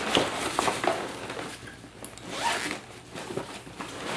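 Zipper of a camera carrying case being pulled open in a few short strokes.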